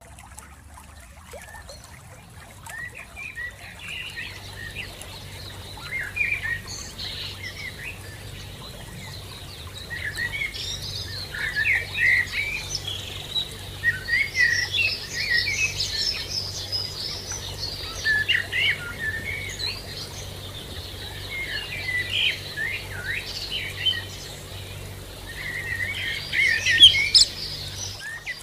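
Songbirds chirping and twittering, many short overlapping calls, sparse at first and busier after a few seconds.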